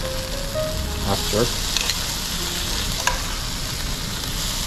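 Thick vodka pasta sauce sizzling steadily in a hot pan, with a few light clicks.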